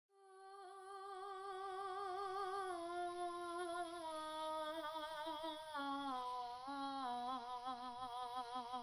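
A high wordless voice humming a slow melody with vibrato. It fades in over the first second and drifts down in pitch in small steps, wavering more near the end.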